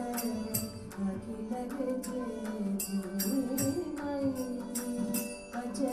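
Carnatic music: a melodic line that slides and bends in pitch, over crisp hand-drum strokes.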